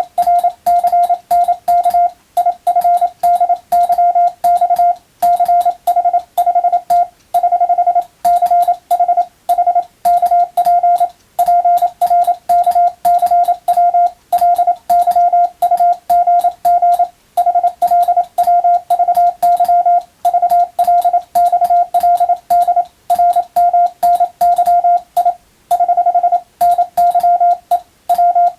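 Hand-keyed Morse code (CW): one steady mid-pitched tone switched on and off in dots and dashes, with short gaps between letters and longer pauses between words.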